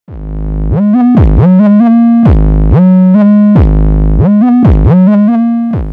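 Electronic music: a synthesizer line whose notes swoop up in pitch and then hold, repeating as a short phrase over and over.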